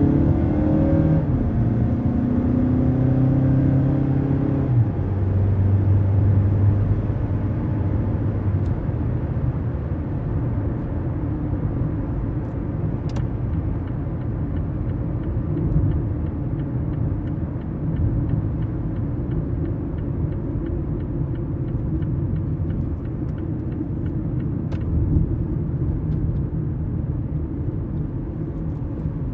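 Mazda CX-5 heard from inside the cabin while driving. In the first few seconds the engine pitch climbs and steps as it shifts up through the gears, then it settles into a steady low rumble of engine and road noise.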